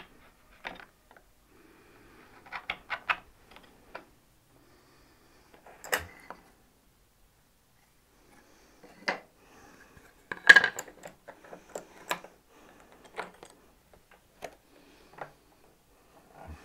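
Irregular clicks and knocks of tools and wooden workpieces being handled on a workbench, some in quick clusters, the loudest about ten and a half seconds in.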